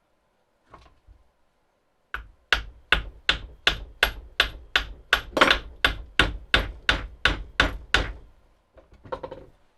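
Hammer blows driving a new CV joint onto a drive axle: a steady run of about sixteen even strikes, roughly three a second, followed by a few lighter knocks near the end.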